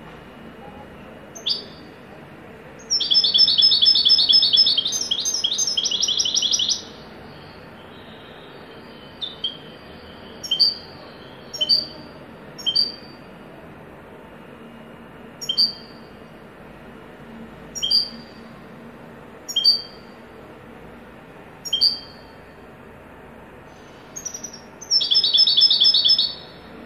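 European goldfinch singing in the 'haddad' (blacksmith) style. A loud, rapid trill of ringing notes lasts about four seconds, then single sharp notes come every second or two, and a second fast trill starts near the end. Steady faint hiss underneath.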